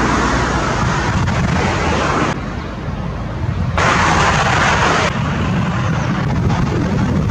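Wind buffeting the microphone over steady outdoor street noise, a heavy low rumble with a hiss above it. The sound changes abruptly at cuts about two and a half, four and five seconds in.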